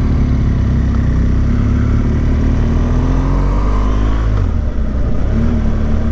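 Motorcycle engine on the move, its pitch rising slowly as it pulls, then dropping about four seconds in at a gear change and running steadily after.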